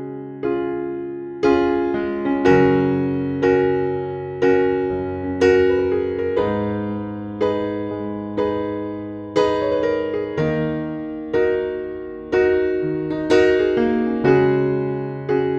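Background music: keyboard chords struck about once a second, each dying away before the next.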